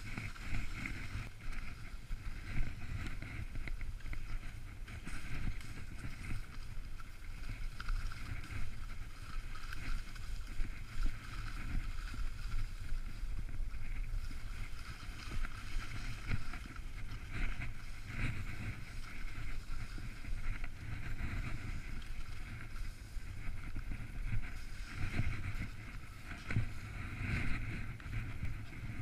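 Skis sliding over snow on a descent, a steady rushing noise that swells and fades, with wind rumbling on the microphone.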